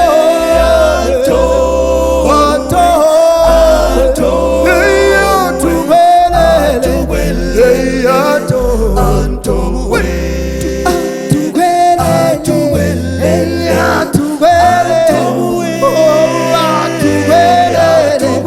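A gospel a cappella group singing in close harmony, with a lead melody over the other voices and a low bass line that moves note by note.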